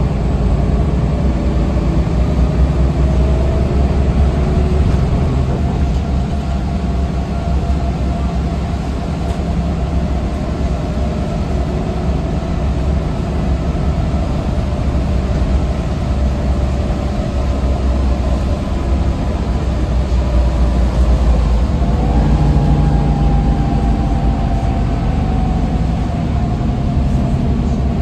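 Solaris Urbino III city bus heard from inside the passenger cabin: its engine and drivetrain run with a heavy low drone, and the whine above it drifts in pitch, rising again about 22 seconds in.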